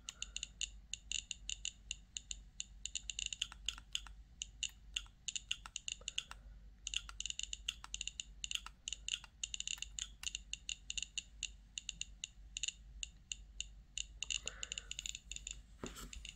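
Radiacode 103 scintillation detector clicking through its built-in speaker at random, irregular intervals, several a second, each click a short high-pitched chirp: its audible count of the natural background radiation.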